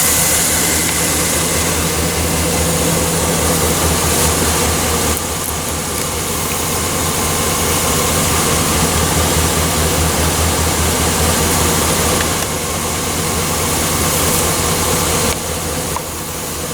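A vehicle engine idling steadily, an even low hum with a constant hiss over it.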